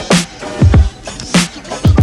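Music with a heavy beat: deep bass hits that slide down in pitch, and a sharp snare or clap hit about every second and a quarter.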